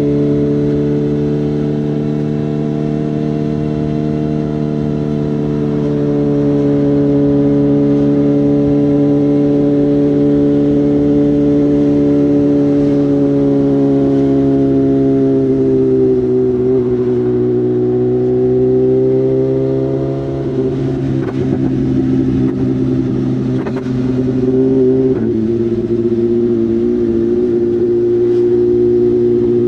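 BMW M1000R's inline-four engine running through a genuine SC Project S1 slip-on exhaust at a steady cruise, its note sagging slightly in pitch. About twenty seconds in, the note turns rough and uneven for a few seconds, then settles to a steady note again.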